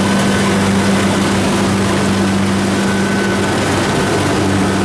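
Kubota rice combine harvester running steadily while cutting rice: a constant engine drone with a strong low hum over a broad, even rushing noise.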